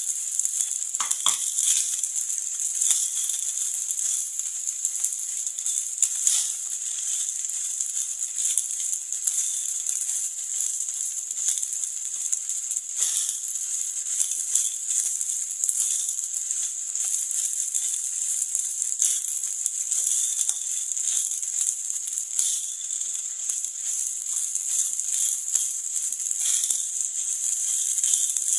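Fried rice sizzling in a hot nonstick frying pan while a spatula stirs and scrapes it, with frequent small knocks of the spatula against the pan.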